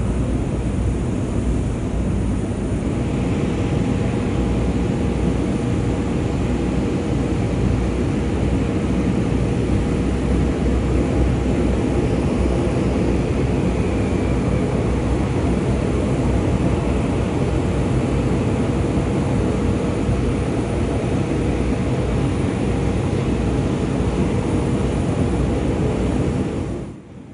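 Airbus A330-200F freighter's twin jet engines at takeoff power: a steady loud rumble, with a faint steady whine held over it from about three seconds in. The sound drops away suddenly near the end.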